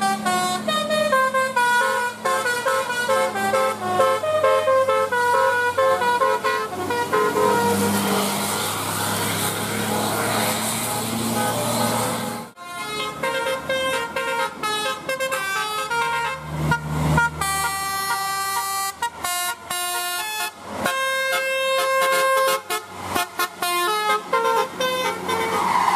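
Bus telolet horns, multi-tone air horns playing a quick tune of short stepping notes, over the sound of the buses running. About halfway through, the horn cuts off abruptly and another horn tune starts, with some longer held notes near the end.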